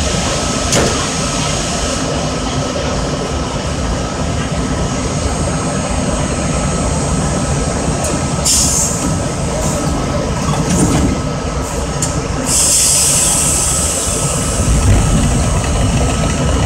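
R32 subway train standing at a station with its equipment running: a steady rumble and a steady tone. Compressed air hisses briefly about eight seconds in and again for about two seconds after twelve seconds. Near the end a deeper rumble sets in and a motor whine begins to rise as the train starts off.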